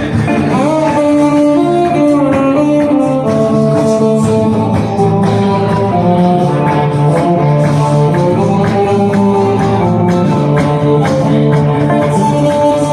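An instrumental break with an upright bass taking a bowed solo: a melody of held, sliding notes over acoustic guitars strumming and picking the accompaniment.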